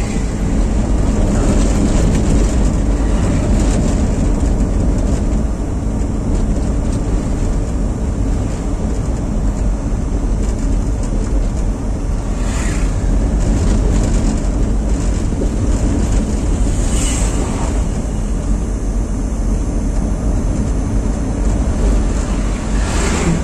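Steady engine and road noise of a moving car heard from inside the cabin, mostly a low rumble. Two brief higher-pitched sounds come in about halfway through.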